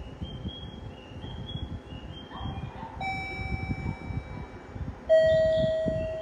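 Two blasts of an electric train horn, the second louder and slightly lower-pitched, starting about three and five seconds in, over a low rumble and a repeating chirping electronic chime of short high notes.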